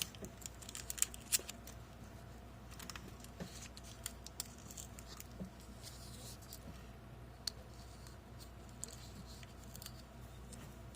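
Light clicks and rustles of wires and heat shrink tubing being handled, thickest in the first second and a half, over a faint steady hum.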